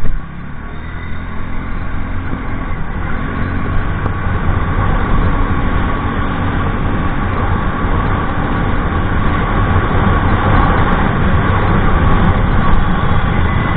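Wind rushing over the microphone with road and engine noise from a TVS Ntorq scooter being ridden, getting louder as it picks up speed to about 68 km/h. A brief loud bump right at the start.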